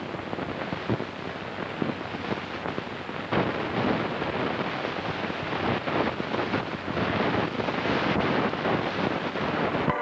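Rushing, wind-like noise full of crackles and pops, growing louder about three seconds in, on a worn old film soundtrack.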